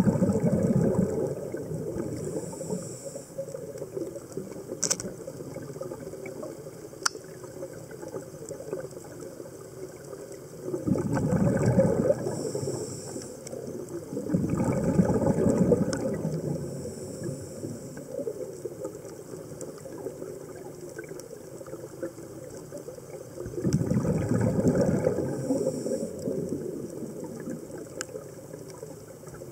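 Scuba diver's regulator breathing heard underwater: the bubbling rumble of exhaled air comes four times, each lasting a couple of seconds, with faint hissing inhalations between. Two sharp clicks come early on.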